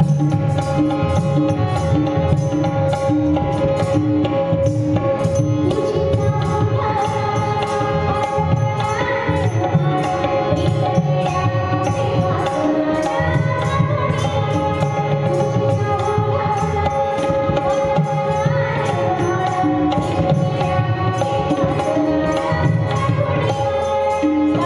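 Indian music with tabla keeping a steady rhythm under a sustained drone, and a melody line gliding in and out over it.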